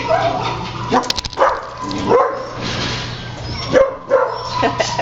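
Dogs barking in a shelter kennel: several short barks scattered through, over a steady hum.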